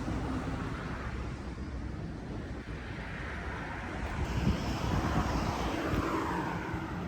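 Steady outdoor rushing noise of vehicle traffic with wind on the microphone, growing a little louder in the second half.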